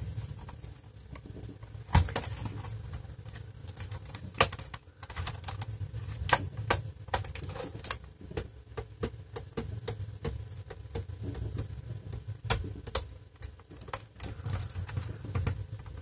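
Plastic bottom case of an HP Pavilion 15 laptop being flexed by hand: irregular sharp clicks and creaks as its plastic clips strain and unhook, the loudest about two seconds in.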